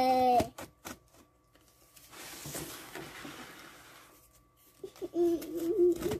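Scissors slicing along the packing tape on a cardboard box: a couple of clicks, then a soft scraping rasp lasting about two seconds. A child's voice makes short sounds near the end.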